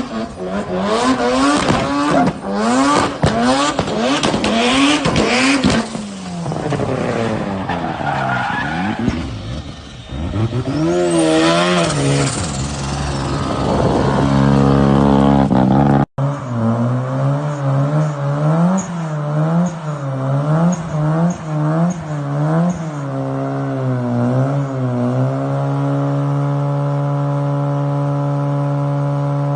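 Mazda RX-7's rotary engine revved again and again in quick blips, the pitch rising and falling each time, with one longer rev about ten seconds in. Near the end it settles into a steady idle.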